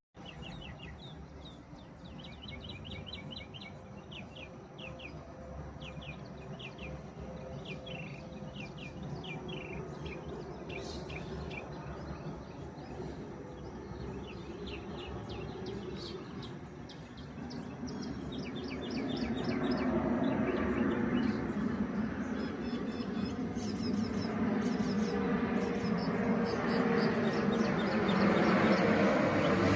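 Small birds chirping repeatedly, while an approaching airplane's rumble and engine hum grow steadily louder through the second half.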